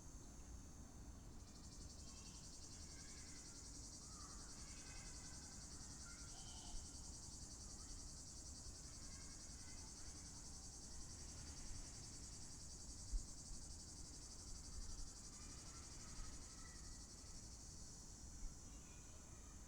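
Cicada buzzing, a continuous high, dense drone that swells slightly about a second and a half in, with a few faint short chirps and a low background rumble in a hot summer outdoor ambience.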